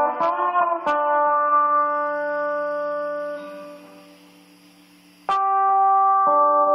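Solo guitar: a few quick plucked notes, then a chord left to ring and fade away for several seconds. A fresh chord is struck about five seconds in and another about a second later.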